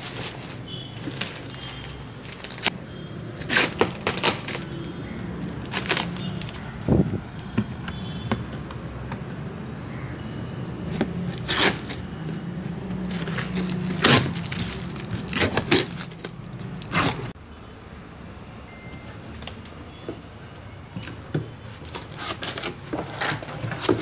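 A taped cardboard box being opened by hand: packing tape and plastic wrap peeled and crinkled, and cardboard scraped, in a string of sharp crackles and scrapes. Underneath is a steady low hum that stops suddenly about three-quarters of the way through.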